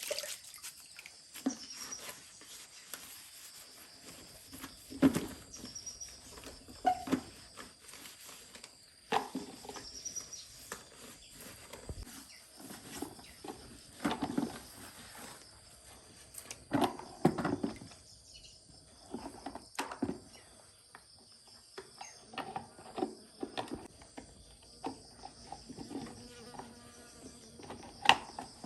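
Insects, crickets or similar, keeping up a steady high-pitched chirring, with irregular knocks and clatter of objects being handled scattered through it, and a few short high chirps in the first ten seconds.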